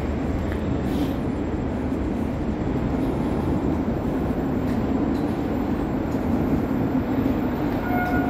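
81-775/776/777 (Moskva-2020) metro train running, a steady rumble and rush of rail noise. A few short tones of different pitches begin near the end.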